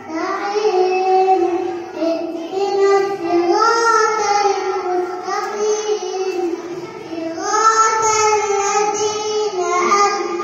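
A young girl singing solo into a handheld microphone in long melodic phrases with gliding held notes, pausing briefly for breath between them.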